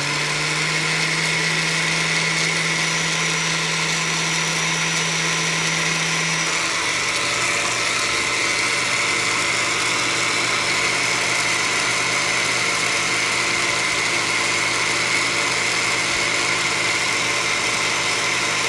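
Countertop blender running steadily, grinding a roasted-tomato and chile salsa; its motor hum steps a little lower in pitch about six seconds in.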